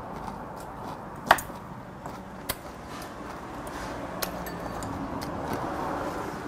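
Metal chopsticks clicking against ceramic side dishes: three sharp clicks, the loudest about a second in, over low room noise.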